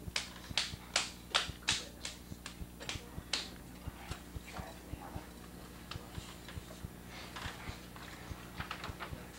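Hands slapping a large lump of wet clay on a potter's wheel, a quick even run of about three slaps a second, giving way after about three seconds to lighter, irregular pats.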